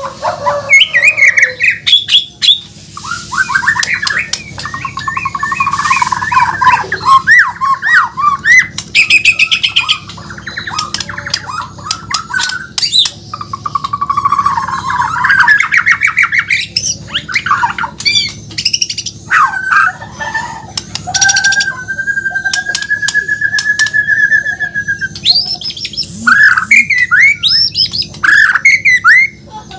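White-rumped shama (Bornean murai batu) singing without a break: a quick, varied stream of whistles, trills and harsh chattering notes, with one long wavering whistle held for a few seconds past the middle.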